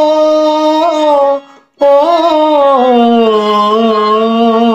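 A man's voice singing a long held 'o' vowel, the drawn-out ornamental 'ও-ও-ও' tail of a Bengali song line, over a held harmonium note. The voice breaks briefly for a breath about one and a half seconds in, then comes back and slides down in pitch to hold a lower note.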